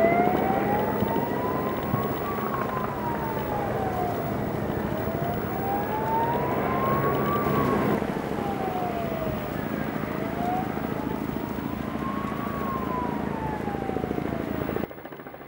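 A siren wailing, its pitch slowly rising and falling three times, about five seconds to each cycle, over a steady low rumble. It cuts off suddenly near the end.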